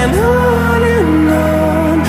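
Background music with a sung melody over a steady bass.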